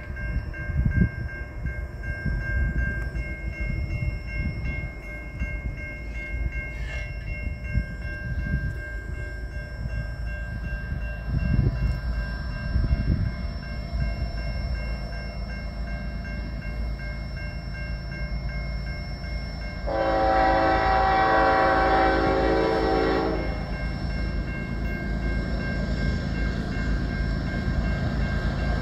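A Nathan K5HLA multi-chime air horn on a GE ES44AC freight locomotive sounds one long blast of about three seconds, about two-thirds of the way in, over the low rumble of the approaching locomotive working in notch 8. The horn sounds a bit off to the owner, who suspects its #4 chime may be dead.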